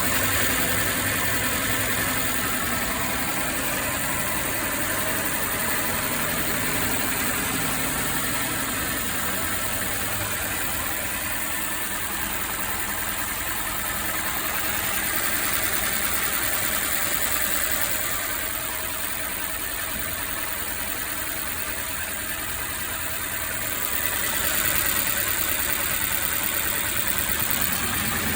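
Mercedes engine idling with a misfire. It runs continuously, easing off slightly for several seconds past the middle and then picking back up.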